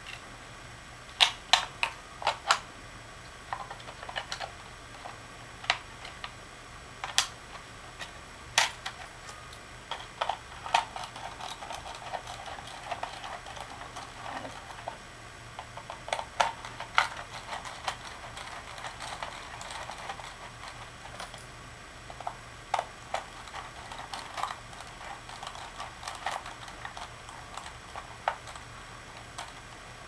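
Irregular sharp clicks and light scraping of laptop memory sticks and their spring clips being worked in the RAM slots. There is a loud cluster of clicks about a second in, with softer scraping between the clicks in the middle.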